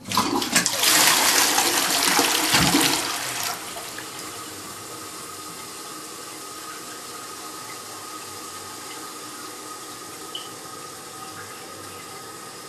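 Caroma dual-flush low-flow toilet doing a full flush: a loud rush of water for about three and a half seconds. It then drops to the quieter steady hiss of the tank refilling, with a faint steady whine.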